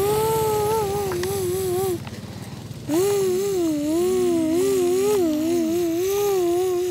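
A child's voice imitating a truck engine: a wavering hummed drone with a buzzing rasp under it, broken by a short pause about two seconds in and then resumed. A second, lower steady hum joins for a second or two near the middle.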